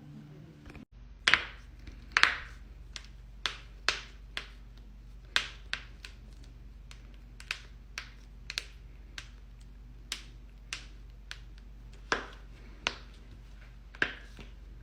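Joints cracking: about twenty sharp pops and clicks at irregular intervals, the loudest near the start, over a steady low hum.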